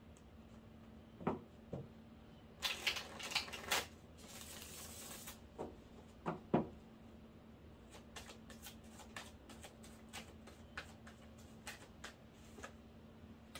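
A deck of tarot cards being shuffled by hand: a burst of riffling a few seconds in, a couple of sharp knocks just after halfway, then a long run of quick light card clicks.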